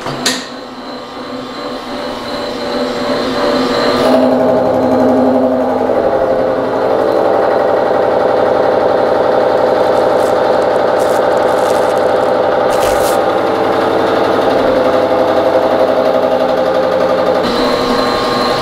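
A 2.5-inch carbide face mill on a milling machine takes a 50-thousandths facing cut across a steel block. It makes a loud, steady cutting tone with several pitches that builds over the first four seconds as the cutter comes fully into the work, then holds, changing slightly near the end.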